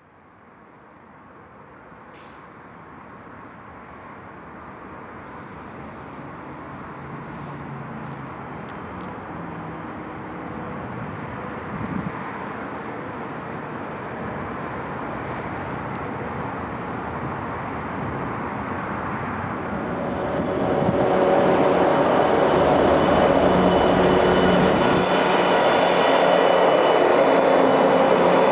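Union Pacific diesel freight locomotive and train approaching, the engine and rolling rumble growing steadily louder, then much louder about twenty seconds in as the lead unit draws close. Several high steady squealing tones ring out over the rumble from that point.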